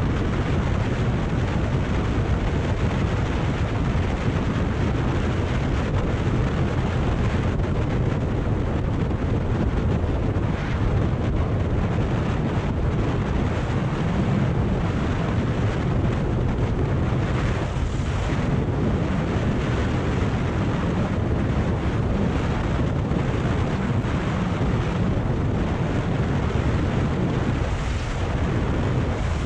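Steady wind rush on the microphone of a moving Kawasaki Ninja 400 motorcycle, with the bike's parallel-twin engine running underneath.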